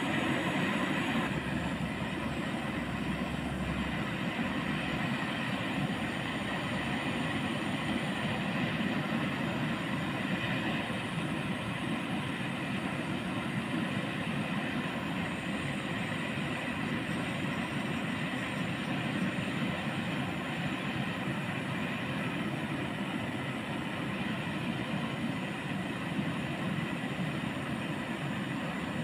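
Handheld gas torch on a butane canister burning steadily, a continuous flame hiss as it heats a sickle's tang until the metal glows red.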